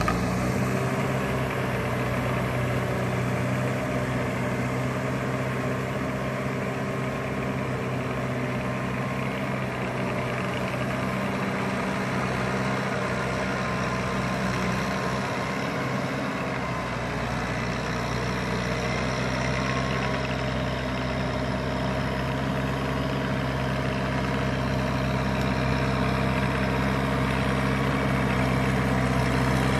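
Farm tractor's diesel engine running steadily as it works a flooded rice paddy, a constant low drone that grows louder through the second half as the tractor comes closer.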